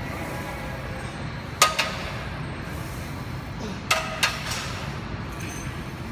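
Metal gym weights clanking: one sharp clank about a second and a half in, then two more close together near four seconds, each ringing briefly over a steady background hum.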